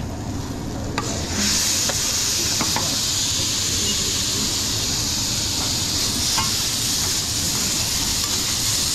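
Food sizzling on a hot pan or griddle in a restaurant kitchen, a steady hiss that gets suddenly louder about a second and a half in and then holds, with a few light knocks.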